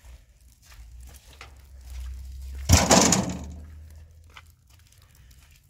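A sheet of steel dropped onto the ground lands with one loud crash about three seconds in, its rattle dying away over about a second. A steady low rumble runs underneath.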